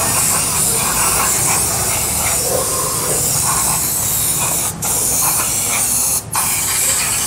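Compressed-air spray gun hissing as it blasts cleaning fluid over a scooter's CVT cover, steady and loud, cutting out briefly twice in the second half as the trigger is let go.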